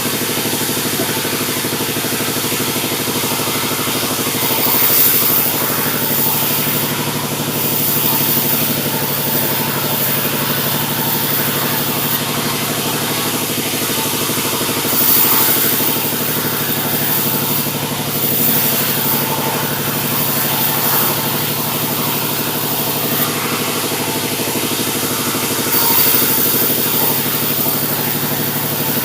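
Sawmill running steadily, its engine drone constant, while the saw's cutting hiss swells and fades several times as it works through a mahogany log.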